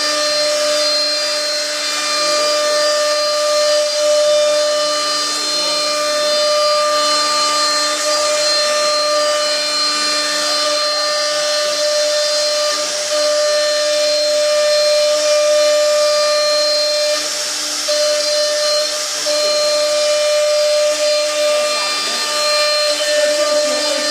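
CNC router spindle motor running steadily, giving a high whine over a hiss, with a brief dip about two thirds of the way through.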